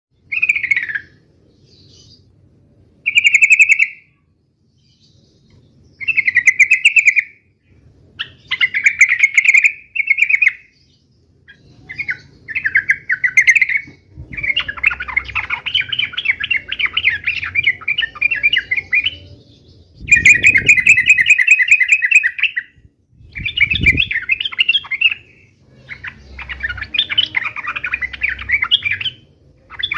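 Yellow-vented bulbul (trucuk) singing its fast 'uplik-uplik' fighting song: loud bursts of rapid chattering notes. The phrases are about a second long early on and grow into longer runs of several seconds past the middle.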